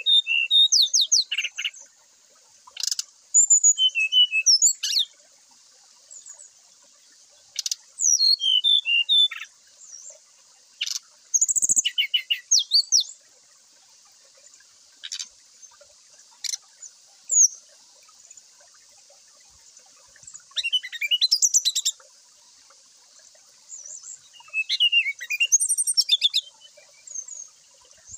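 Fulvous-chested jungle flycatcher (sikatan rimba dada coklat) singing in full, clear voice. Its phrases of fast, high whistles and trills come in bursts of one to two seconds with pauses between.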